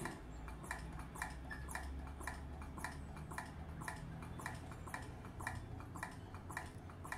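Faint, very regular ticking, about two ticks a second, over a low hum.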